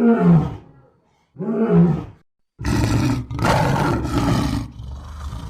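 A big cat roaring: two short calls that rise and fall in pitch, about a second and a half apart, then longer, rougher calls from about two and a half seconds in, going fainter near the end.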